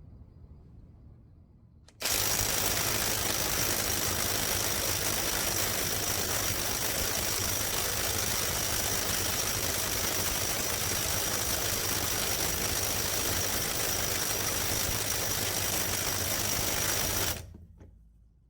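Onevan cordless right-angle impact wrench hammering continuously on a 2-inch socket, tightening under load. It starts suddenly about two seconds in, runs steadily for about fifteen seconds, and cuts off abruptly near the end.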